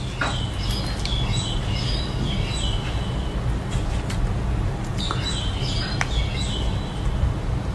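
Small birds chirping in short high phrases, twice, over a steady low hum, with a few sharp clicks of handling.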